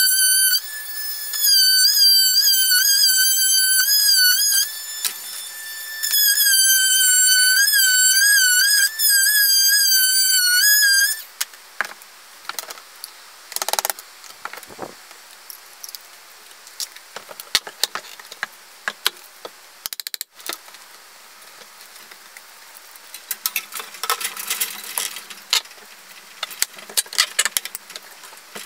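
Music: a single high melody line with vibrato for about the first eleven seconds. Then it stops, leaving quieter scattered clicks, knocks and metallic clinks of work at the scaffolding, growing busier near the end.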